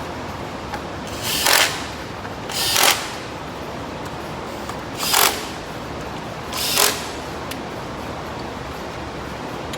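Four short bursts of a ratchet wrench clicking as bolts are turned on the engine, each lasting about half a second.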